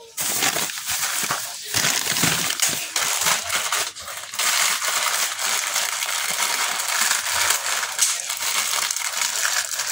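Plastic wrapper of an instant-noodle packet crinkling as it is handled, a dense crackly rustle that eases a little about four seconds in.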